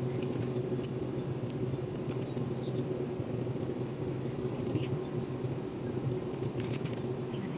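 Steady low hum of refrigerated supermarket display cases, with a few faint clicks and crinkles from a plastic-wrapped foam meat tray being handled.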